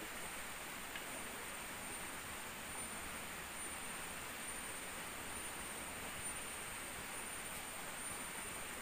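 Steady forest ambience: an insect's high, unbroken drone over an even hiss, with one faint click about a second in.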